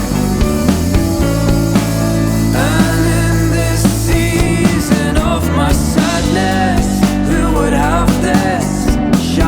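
Rock band music with drums on a steady beat under sustained guitar chords; a wavering lead melody comes in about two and a half seconds in.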